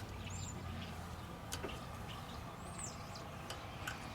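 A few short bird chirps, with two sharp clicks, one about a second and a half in and one near the end.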